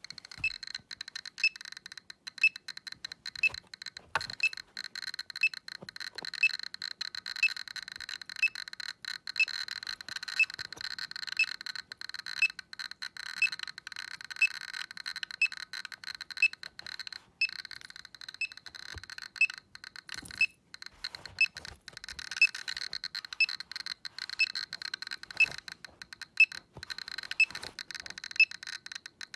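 Geiger counter clicking rapidly and irregularly, with a short high beep about once a second over a steady high tone. The clicks are counts of beta and gamma radiation from a cat treated with radioactive iodine-131.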